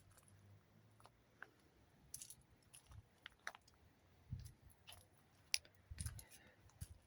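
Near silence broken by faint, scattered clicks and crunches and a few soft thumps.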